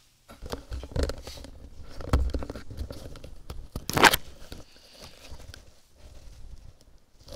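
Irregular knocks and rustling close to the microphone, the loudest a sharp knock about four seconds in.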